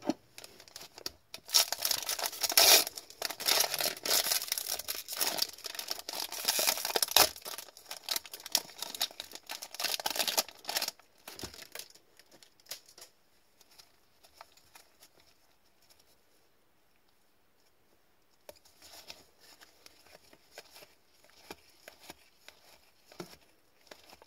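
Foil wrapper of a hockey card pack being torn open and crinkled, a loud crackling that lasts about ten seconds. After a quiet spell, fainter clicks and rustles follow near the end as the cards are handled and fanned through.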